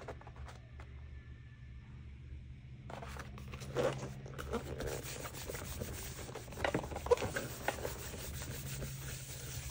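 Hands rustling and rubbing on the paper pages of a thick phone book, smoothing the open pages flat: a dense, scratchy rustle that starts about three seconds in.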